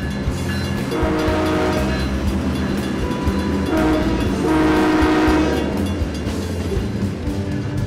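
Union Pacific diesel locomotives passing with a steady low rumble, the air horn sounding a chord in several blasts, the longest and loudest about halfway through.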